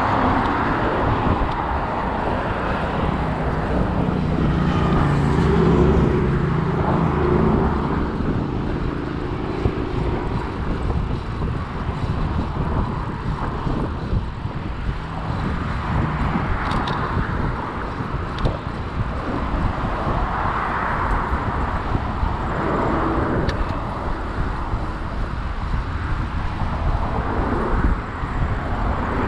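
Steady road traffic from the multi-lane road beside the trail, cars swelling and fading as they pass, over wind rumble on the chest-mounted camera's microphone as the bike rides along. A louder engine drone passes a few seconds in.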